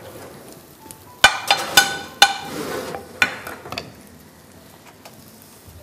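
A spoon and a steel bowl clank sharply against a metal cooking pot about five times, each clank ringing briefly, with a short scrape between them, as browned flour is knocked out of the bowl into a pot of onions.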